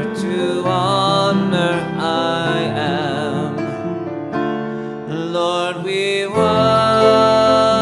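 Grand piano playing a slow worship song while a man sings along with vibrato. A louder sustained note and chord come in about six seconds in.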